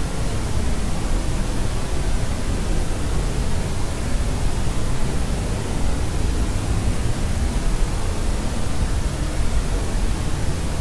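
Steady pink noise, an unchanging hiss that is heaviest in the low end. No baby crying is heard.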